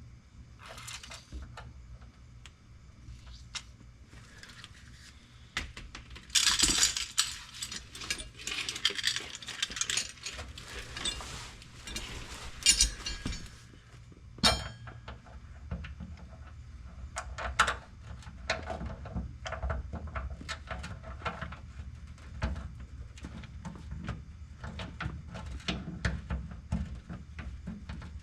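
Hand tools and metal parts clinking and rattling, with a dense stretch of rapid metallic clatter through the middle and scattered single clinks either side.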